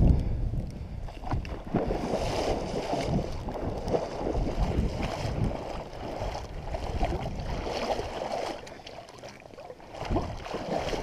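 A person wading through pond water, the water sloshing and splashing with each stride, with a brief lull near the end before the splashing picks up again.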